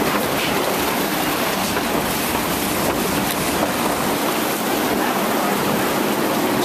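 Water rushing steadily along a log flume ride's trough, heard from a log floating in it: an even, continuous rush with no breaks.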